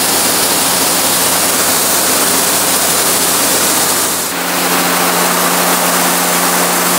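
High-pressure car-wash wand jet blasting water onto a car's door panel, rinsing a freshly coated surface: a loud, steady hiss of spray with a steady low hum underneath, briefly dipping about four seconds in as the jet moves.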